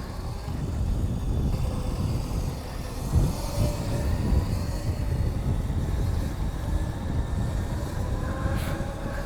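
Wind buffeting the microphone during a fast ride on an electric scooter, a steady low rumble, with a faint whine that drifts slightly in pitch.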